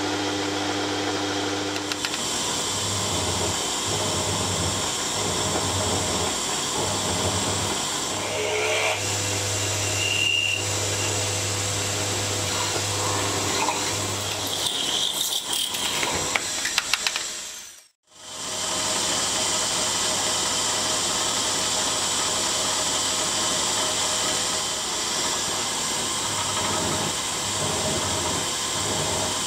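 Milling machine spindle running while a drill bores clearance holes through a metal block, with mist coolant spraying onto the drill and some brief squeals and clicks from the cut. The sound cuts out for a moment a little past the middle, then the machine runs on steadily.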